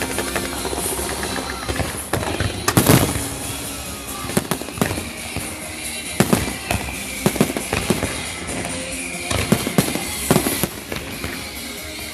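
Fireworks shells bursting in a string of sharp bangs and crackles, the loudest about three seconds in, over the display's music soundtrack.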